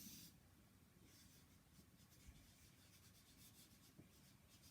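Faint scratching of writing by hand on paper, in short quick strokes.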